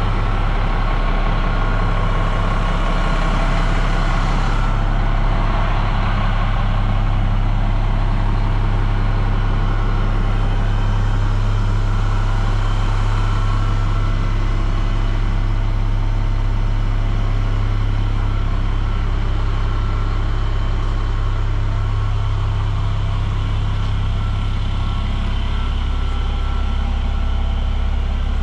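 2003 Seagrave fire engine's diesel engine idling with a steady low drone.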